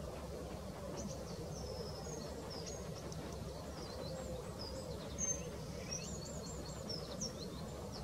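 Small birds chirping and whistling in short, quick high notes and trills, scattered through from about a second in, over a steady low rumble of outdoor background noise.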